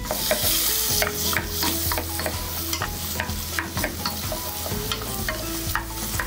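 Diced ham and onion sizzling in olive oil in a pot over raised heat, stirred with a wooden spoon that scrapes and knocks against the pot many times. The sizzle is loudest in the first second.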